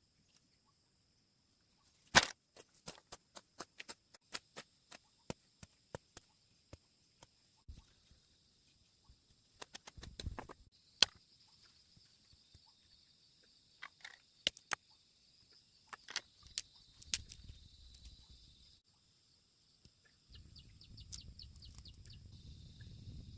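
A long series of sharp clicks and snaps, irregular and mostly light, with the loudest about two seconds in. A steady, faint high-pitched hum runs behind them, and low rumbling noise comes in near the end.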